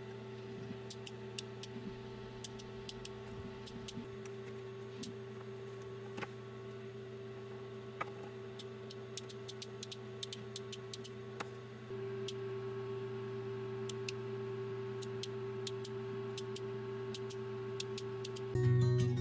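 Steady electrical hum with faint, irregular ticking and a couple of sharper clicks. The hum gets slightly louder about twelve seconds in.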